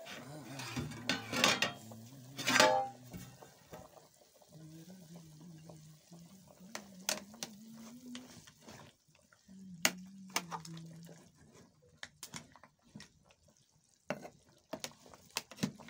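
Metal ladle and lid clanking against a large aluminium cooking pot of simmering meat broth as the lid comes off and the pot is stirred. The two loudest clanks, each with a short metallic ring, come about a second and a half and two and a half seconds in, followed by scattered lighter clinks and scrapes.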